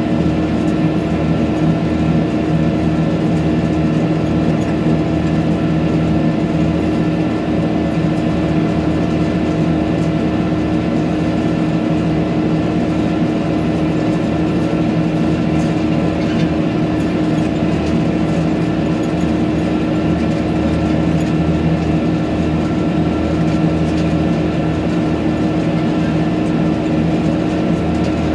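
Tractor engine running steadily under way on the road, a constant drone with a few steady humming tones and no change in speed.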